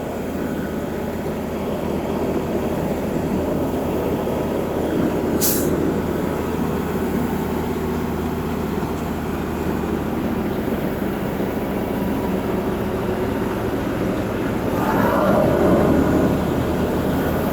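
Heavy diesel truck engine running steadily at a low drone, with one brief sharp hiss about five and a half seconds in and a slight swell near the end.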